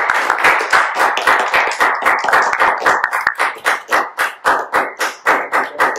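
Audience applauding a finished speech. The clapping starts as a dense mass and, about halfway through, settles into a steady rhythm of roughly three claps a second.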